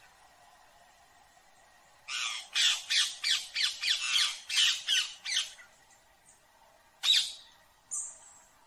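Indian ringneck parakeet squawking: a quick run of about ten harsh, downward-sweeping screeches, then one more loud squawk and a shorter one near the end.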